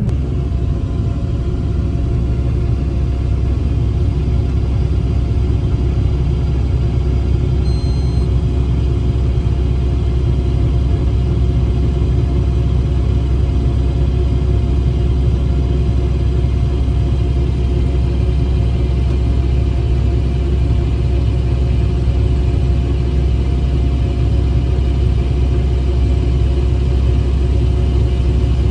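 Combine harvester's diesel engine running steadily, a loud, even low rumble with a constant hum that holds the same pitch throughout.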